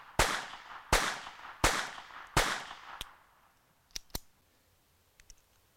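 Colt 1908 Vest Pocket .25 ACP pistol firing four shots about three-quarters of a second apart, each a sharp crack with a short fading ring. A light click follows, and about a second later two quick metallic clicks as the slide is pulled back by hand.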